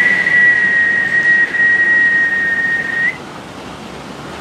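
A person whistling one long, steady high note, held for about three seconds, that flicks slightly upward as it stops.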